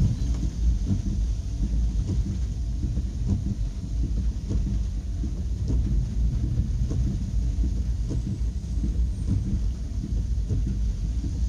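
Heavy rain falling, under a steady low rumble.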